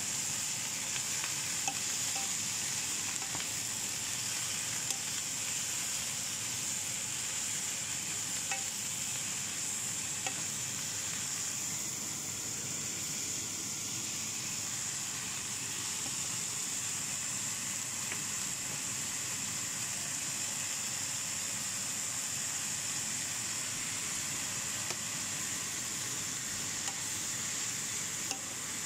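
Shredded cabbage and carrots, and scrambled egg, sizzling in a nonstick frying pan as they are stir-fried with a spatula, a steady hiss with a few light taps of the spatula.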